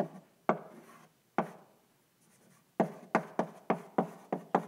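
Chalk writing on a blackboard, each stroke a short sharp tap: a few separate taps, a pause of about a second and a half, then a quick run of taps at about four a second as an equation is written.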